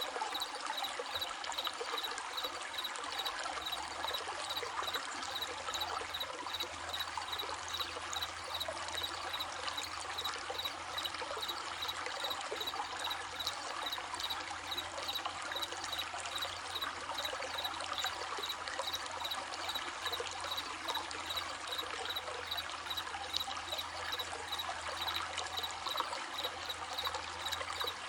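Running stream babbling steadily, with crickets chirping in a steady, evenly pulsed high note throughout.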